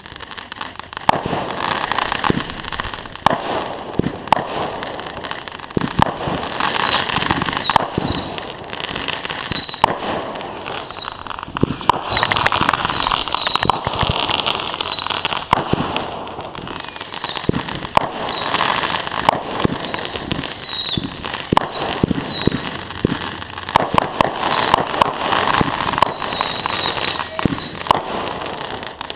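Consumer fireworks going off one after another: a steady run of bangs and crackling. From about five seconds in, many short, high whistles fall in pitch, typical of whistling fireworks.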